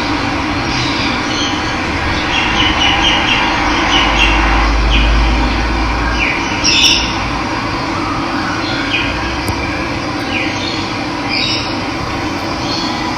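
Steady rush of running water with birds chirping over it in short, scattered calls, one louder call about seven seconds in. A low rumble swells briefly about four seconds in.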